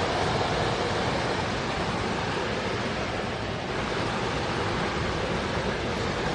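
A forest stream's water rushing steadily.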